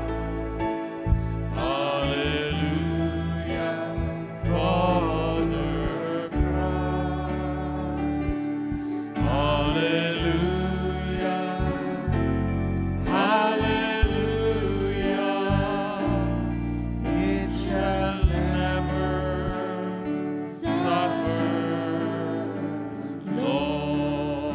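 Live worship band performing a gospel song: voices singing over acoustic guitar and keyboard, with frequent sharp percussive hits.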